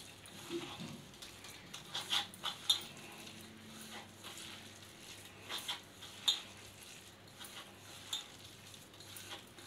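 A hand kneading and squeezing coarse-ground corn vadai batter in a stainless steel bowl: quiet squishing with scattered light clinks against the steel.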